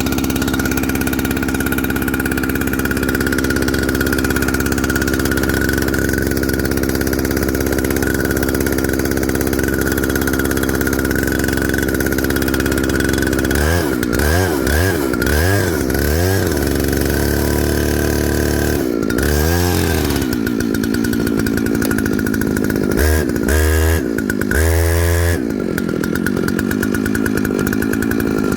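Jonsered 2095 chainsaw's two-stroke engine idling steadily, then revved in several short throttle blips through the second half before settling back to idle.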